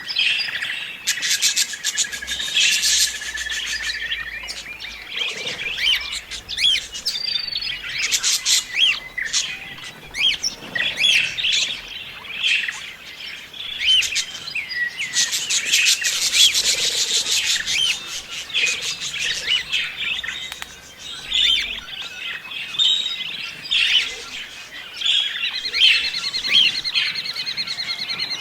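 Budgerigars chirping and warbling nonstop, many short calls and trills overlapping.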